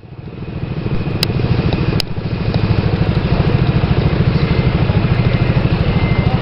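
A vehicle engine idling with a fast, even pulse, fading in over the first second and then holding steady. Two sharp clicks about one and two seconds in.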